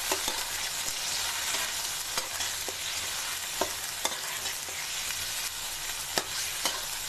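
Chicken pieces sizzling in hot oil in a karahi while being stirred with a metal spoon, the spoon scraping and knocking against the pan every second or so.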